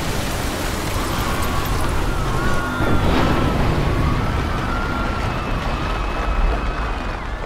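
Heavy rumbling roar following an explosion, a dense wash of noise with a deep rumble under it and thin wavering tones over it.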